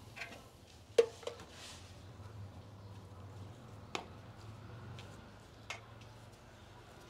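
Cooking utensils knocking a few times; the sharpest knock, about a second in, rings briefly. A low steady hum runs underneath.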